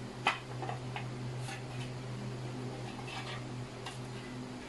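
Light plastic clicks and taps as the perforated white plastic reflector halves of a Ubiquiti LiteBeam 5AC Gen2 dish are handled and fitted together. The sharpest click comes about a quarter second in, with scattered softer ones after, over a steady low hum.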